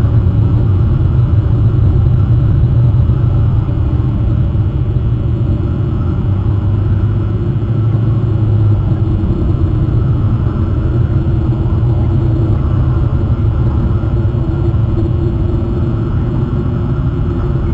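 Steady, loud low rumble, with a low hum in it that fades out about halfway through.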